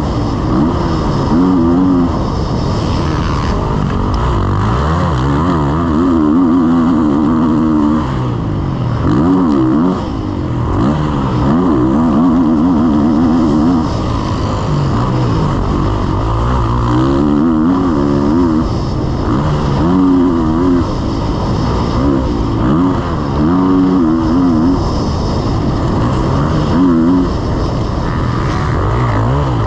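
Motocross bike engine heard from the rider's helmet, revving up and dropping back over and over as the throttle is opened and closed around the track.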